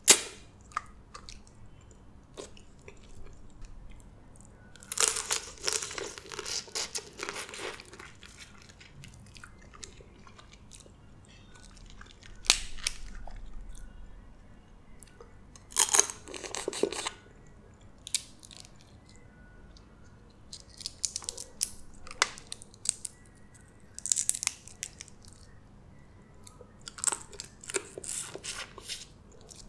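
Close-miked eating of boiled blue crab: the crunch and crackle of crab shell being broken and picked apart by hand, and chewing of the crab meat. It comes in about seven bursts a few seconds apart, with quieter stretches between.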